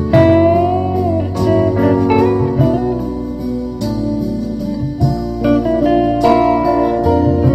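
Instrumental background music led by a guitar with gliding, sliding notes.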